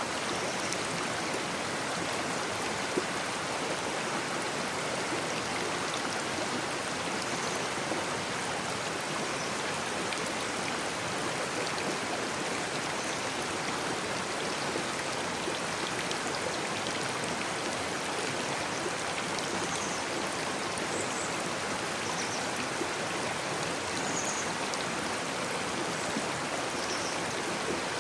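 Shallow brook babbling and rushing steadily over stones, an even wash of water noise.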